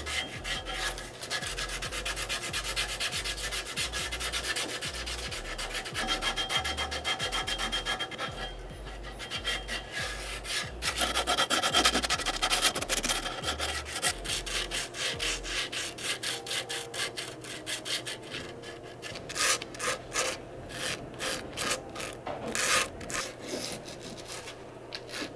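A scrap of grip tape rubbed rapidly back and forth against the edge of a scooter deck's grip tape, making a fast, scratchy sanding sound. It is filing the grip tape's edge smooth so it won't peel. The strokes come thick and fast at first, then turn sparser and more broken up in the last several seconds.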